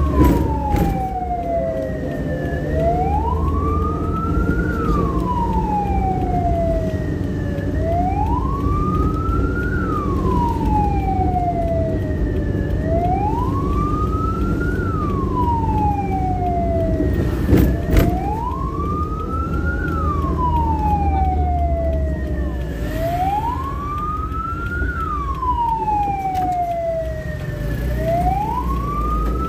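Ambulance's electronic siren on a slow wail, its pitch rising for about two seconds and falling for about three, repeating every five seconds. It is heard from inside the moving ambulance over the steady engine and road rumble, with two sharp knocks a little past the middle.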